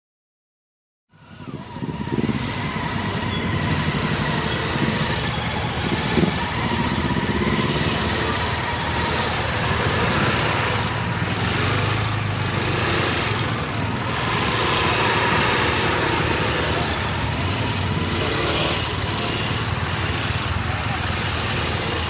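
Motorbike engines running in city street traffic, a steady mix of engine noise that fades in about a second in.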